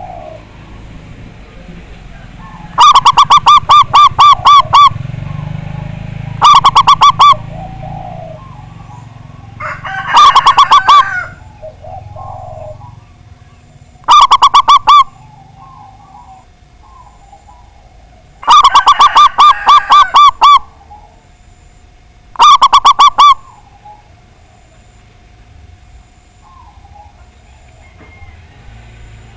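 Zebra dove (perkutut) cooing: six phrases of quick, even staccato notes, each one to two seconds long, loud enough to distort.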